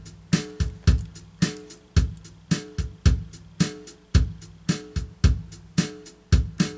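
Instrumental intro music with a steady drum beat and plucked notes.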